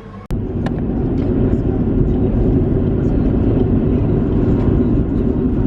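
Steady low rumble of a car on the move, road and engine noise, starting abruptly just after a click.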